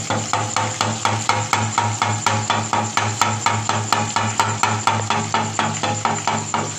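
Slotted metal ladle of gram-flour batter being knocked steadily, about four taps a second, so drops of batter fall through into hot ghee to fry as boondi.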